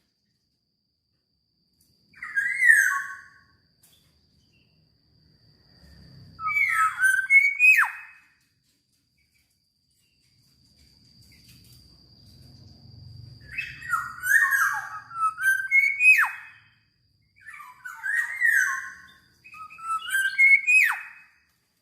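Black-naped oriole (kepodang) singing: about five short bouts of loud, fluting whistled notes with quick downward slurs, separated by pauses of a second or more.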